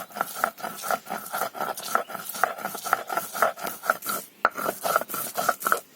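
Boiled new potatoes, flat beans and green chillies being ground by hand on a stone grinding slab, a run of rasping, rubbing strokes about three a second.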